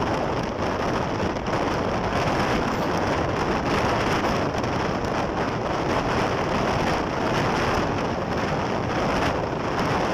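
Steady rushing wind and road noise from a car driving at highway speed, with wind buffeting the microphone.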